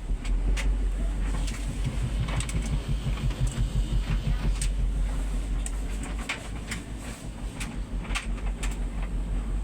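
Bosch Serie 6 heat pump tumble dryer starting a Cotton Eco cycle: the drum turning with a steady low rumble that pulses in loudness, and scattered light clicks and taps as the load tumbles.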